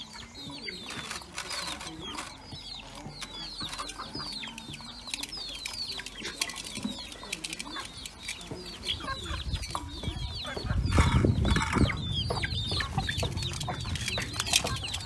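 Chickens clucking, with many short high falling chirps throughout. About ten seconds in, a louder rustling noise joins them for a couple of seconds.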